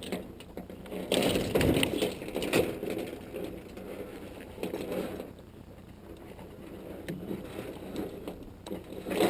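Irregular scraping, rustling and knocking of handling in a fishing boat as a walleye is put on a stringer, busiest in the first few seconds.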